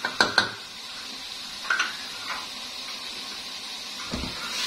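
Kitchen utensils knocking on an aluminium cooking pot while spices are added and mixed: two sharp clicks just after the start, a few softer clicks around two seconds in, and a low knock near the end as the pot is gripped and a wooden spoon starts stirring. A faint steady hiss runs underneath.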